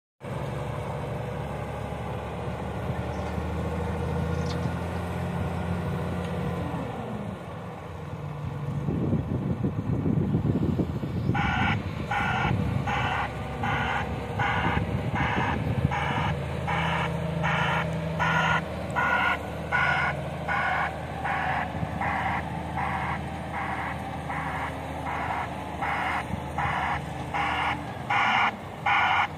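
Komatsu WA470-8 wheel loader's diesel engine running, getting louder as it works under load about 8 seconds in. From about 11 seconds its reversing alarm beeps steadily, about two beeps a second, as the machine backs up.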